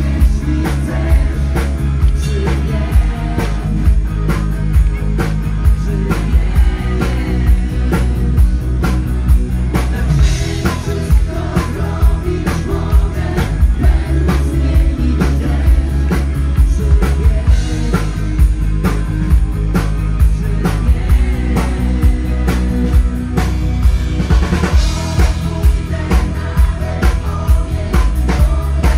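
Live rock band playing a song: drum kit keeping a steady beat under electric guitars, bass guitar and keyboard, with a singer over the top.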